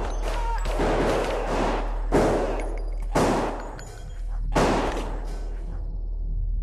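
Automatic rifle fire in about four bursts, each lasting around a second.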